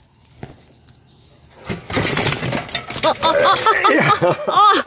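Giant CS800 commuter bicycle on 1.75 tyres rolling and jolting over rough, rocky ground, with crunching and knocking from about one and a half seconds in. A man's excited exclamations come in over it for the last couple of seconds.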